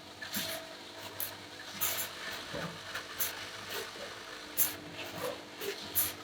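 Production-line machinery running with a steady hum, under irregular clicks and clatters. The sharpest knocks come about two-thirds of the way in and again near the end.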